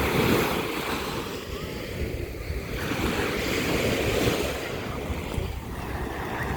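Sea waves washing onto the shore, swelling and easing, with wind rumbling on the microphone.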